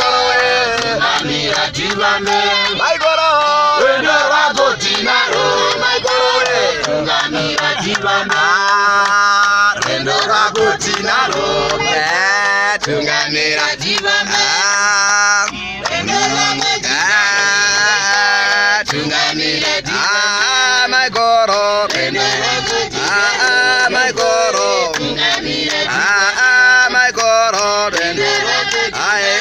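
A group of people singing a song together, men's voices prominent, loud and continuous.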